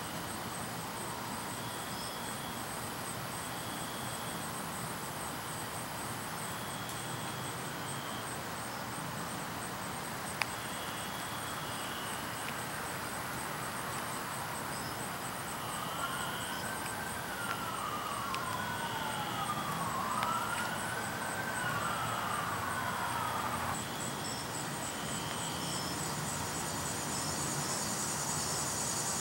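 A faint emergency-vehicle siren wailing, its pitch sweeping up and down every couple of seconds, from about twelve seconds in until it stops a couple of seconds before the end. Underneath, a steady outdoor evening background with a fast, high pulsing trill of insects.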